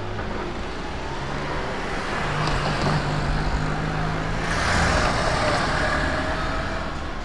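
A vehicle engine droning steadily, swelling louder a little past the middle as something passes and then easing off.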